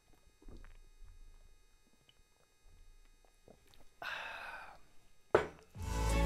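A man gulping beer from a glass bottle, with faint swallowing sounds and small clicks. About four seconds in comes a short breathy laugh, then a sharp knock, and music starts near the end.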